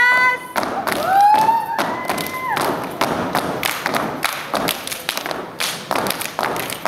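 Step team stomping boots and clapping in unison in a rhythmic step routine, a fast run of sharp thuds and claps. Drawn-out high voices call out over it during the first few seconds.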